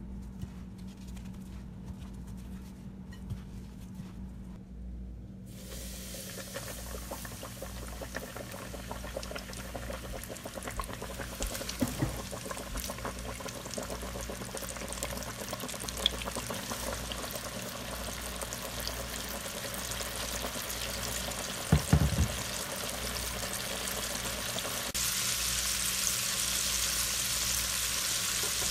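Cornmeal-breaded catfish fillets deep-frying in hot oil at about 375 °F: a dense crackling sizzle that starts about five seconds in and gets louder for the last few seconds. There are a couple of brief knocks along the way.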